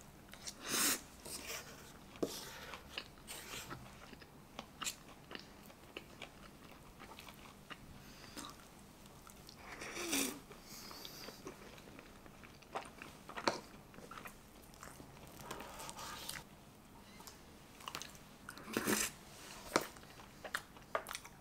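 Eating tiramisu French toast up close: a wooden fork clicks and scrapes on a wooden cutting board as it cuts through the soft, cream-soaked toast, with bites and chewing. Sharp clicks come throughout, with louder, longer sounds about a second in, around ten seconds in and near the end.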